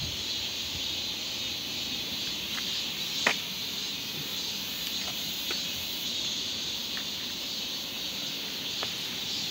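Steady insect chorus, an even high-pitched hiss, with a few faint clicks and one sharper click about three seconds in.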